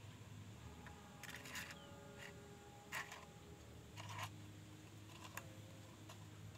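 A few faint clicks and light clinks, some ringing briefly like small metal parts being handled, over a low steady hum.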